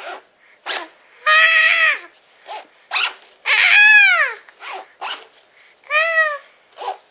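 A zipper pulled in short, quick rasps, about six times. Between them a toddler gives three high-pitched squealing laughs, each rising and then falling in pitch.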